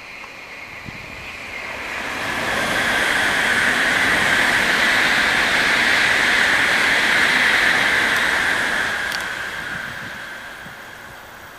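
Tokaido Shinkansen N700A high-speed train passing at speed, a rushing noise. It swells over a couple of seconds, holds loud for several seconds, then fades as the train recedes.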